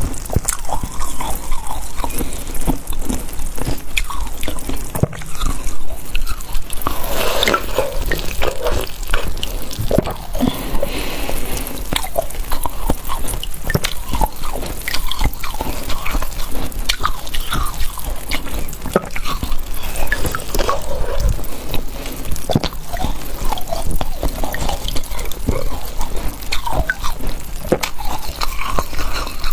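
Cola-soaked ice chunk dripping melted cola into a bowl of cola, amid many short crackles of ice being chewed close to the microphone.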